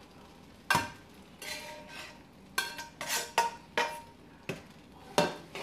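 A cooking utensil clinking and scraping against a pot as cooked ground beef and sausage are added to drained spaghetti noodles: a series of sharp, separate clinks, some with a brief ring.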